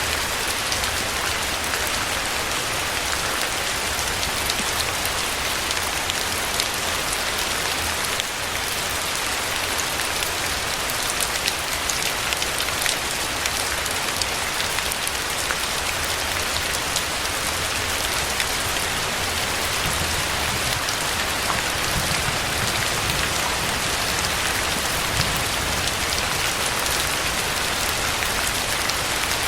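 Steady, heavy rain falling, with many individual drops ticking through a continuous hiss that holds level throughout.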